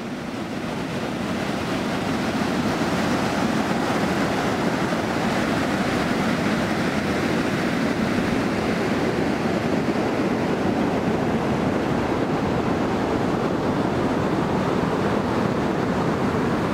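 Ocean surf on a sandy beach, a steady rush that fades in over the first couple of seconds, with wind on the microphone.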